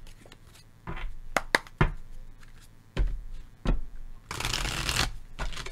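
Tarot deck being shuffled by hand: a string of sharp card clicks and taps as the cards are gathered and cut, then a dense rustle of cards sliding against each other for most of a second near the end.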